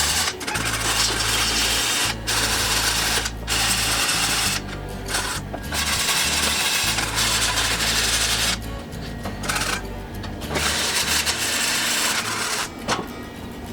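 Wire-feed welder arcing on a steel frame: a steady frying crackle in about five runs of one to three seconds, each stopping and restarting as the trigger is released and pulled again.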